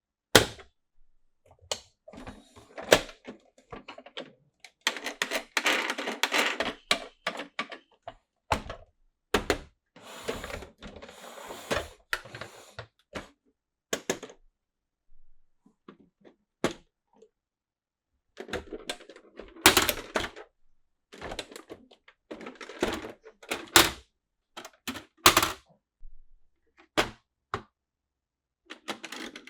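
Plastic toy parts and packaging being handled: a string of sharp clicks and knocks, with two longer stretches of rustling.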